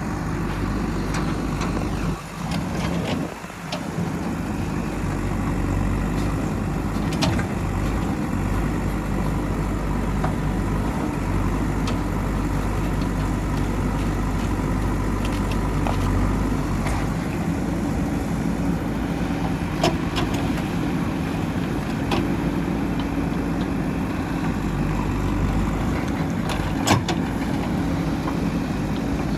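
JCB 3DX backhoe loader's diesel engine running steadily while the machine works, with a few sharp knocks now and then, the loudest near the end.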